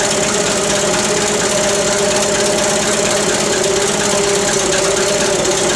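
International Harvester 300 Utility tractor's four-cylinder engine running steadily, freshly restarted after ignition repairs.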